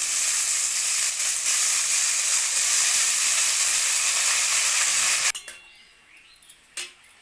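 Chopped beans, carrot and peas sizzling steadily in hot oil and ghee in a kadai. The sizzle cuts off suddenly about five seconds in, leaving a faint click or two.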